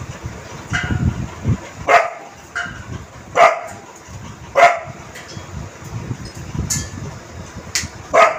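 Dog barking in short, single barks, four loud ones spaced one to three seconds apart with a few softer ones between, a fearful barking at a gas cylinder that scares it.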